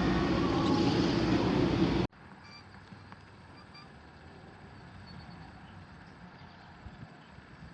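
Steady, loud rumbling noise that cuts off abruptly about two seconds in. After it comes quiet room tone with a few faint high chirps.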